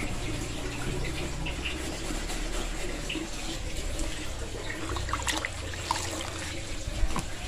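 Water sloshing and dripping as a sponge is dipped and squeezed out in a plastic basin of water, with a few small splashes about five seconds in.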